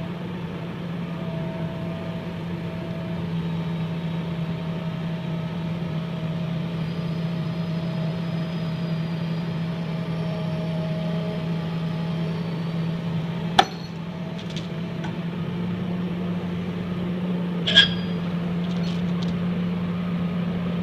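Hydraulic excavator's diesel engine running steadily under load while it lifts a compact track loader, with a faint wavering whine above the drone. Two sharp metallic clanks cut through, about two-thirds of the way in and again near the end.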